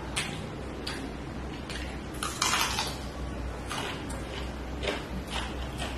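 Close-up eating sounds of a person eating by hand: short wet mouth clicks and smacks several times, with a louder crunchy bite about two and a half seconds in, over a low steady hum.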